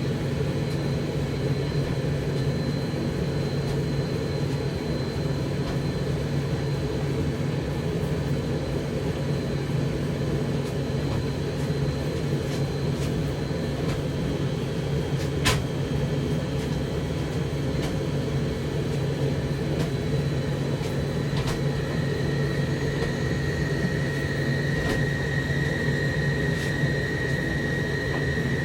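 Zanussi TD162 compact tumble dryer, built by White Knight, running a drying cycle: a steady motor hum with the drum turning. There is one sharp click about halfway through, and a faint high whine comes in about two-thirds of the way through.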